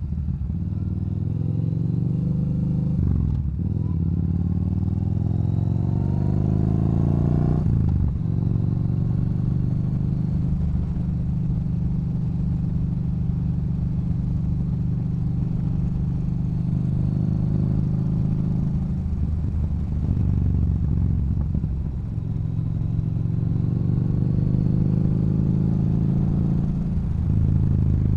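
Yamaha Bolt's V-twin through an aftermarket Cobra exhaust, accelerating through the gears with the pitch climbing and dipping at upshifts about three and eight seconds in. It then holds steady at cruise, eases off around twenty seconds, and climbs again with another shift near the end.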